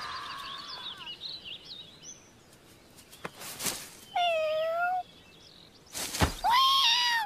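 Anime scene audio: music fades out into faint bird chirping, then a swish, a short wavering high call, a soft thud, and a second call that rises and holds.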